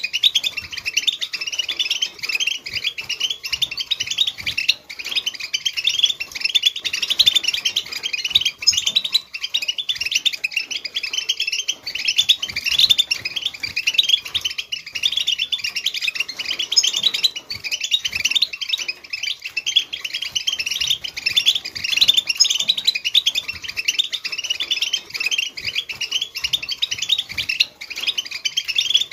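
European goldfinch song in the Wedani style: a continuous, rapid twittering of high, quick notes with no pauses.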